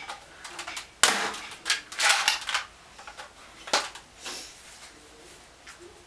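Plastic clacks and snaps from a modded Nerf Crossbow being pulled back to prime and fired, a string of sharp clicks with the loudest about a second in, dying away after about five seconds.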